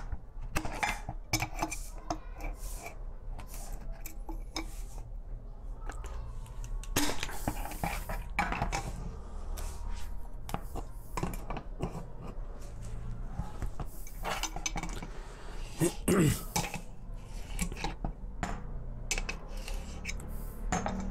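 Adjustable wrench clinking and knocking against the metal body of a lever mixer tap while the large nut holding its spindle is worked loose, with irregular metallic clicks and handling noise.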